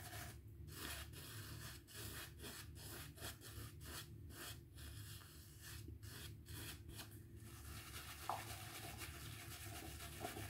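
Satin-tip synthetic shaving brush swirled over a very hard puck of shaving soap to load it: a faint bristly rubbing in even strokes, about two a second, that turns steadier near the end.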